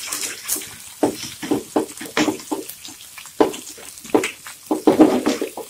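Marinated beef sizzling in hot butter over high heat while a wooden spatula stirs and scrapes it around the frying pan in a run of irregular strokes.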